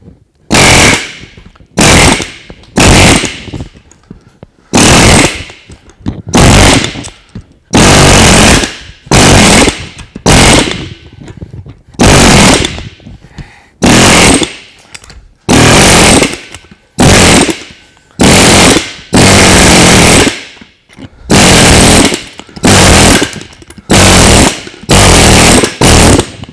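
Chief pneumatic air hammer with a chisel bit firing in about twenty short bursts, each under a second long, chiselling a bolt clamped in a steel bench vise until the bolt is cut off. The bit keeps jumping and sliding off the bolt onto the harder vise jaws.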